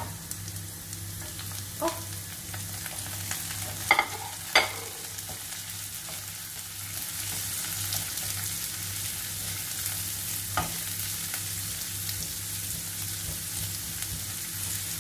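Chopped red onion sizzling in hot olive oil with minced garlic in a non-stick frying pan as it is dropped in and stirred with a spatula; the sizzle grows a little louder in the second half. Several sharp knocks against the pan, the loudest a pair about four seconds in.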